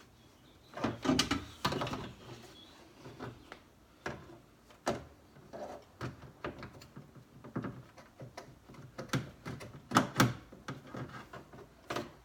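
Irregular clicks, knocks and rattles of the door lock actuator and its linkage rod being worked by hand inside a car door, with a few louder knocks scattered through.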